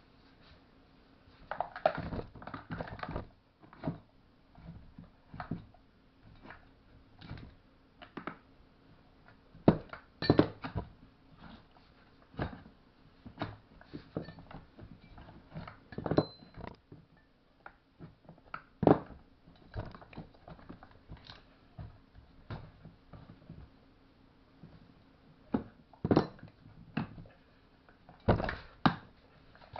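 Irregular knocks and clinks of metal tools and chainsaw parts being handled on a workbench, in scattered clusters with quiet gaps between them.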